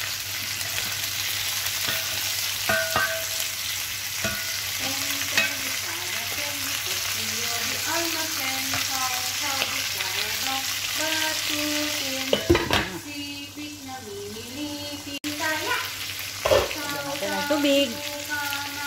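Fish sizzling as it fries in oil and sauce in a nonstick pot, with the clicks and scrapes of tongs turning the pieces. About two-thirds of the way in there is a louder knock and the sizzle drops away briefly before coming back. A tune runs faintly underneath.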